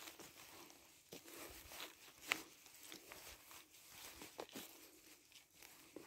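Footsteps through forest litter: leaves and twigs rustling and crunching underfoot, faint and irregular, with one sharp crack a little over two seconds in.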